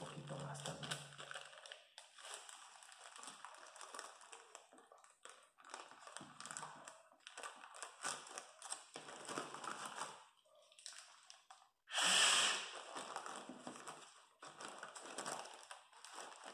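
Thin plastic bags crinkling as they are handled and fitted over seedling cups, with one strong puff of breath about twelve seconds in: air blown into a bag to fill it before it is closed.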